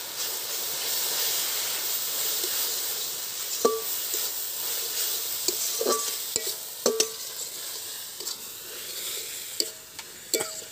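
Chopped taro leaves and spice pastes sizzling in hot oil in a metal wok, stirred with a metal spatula that scrapes and clinks against the pan a few times.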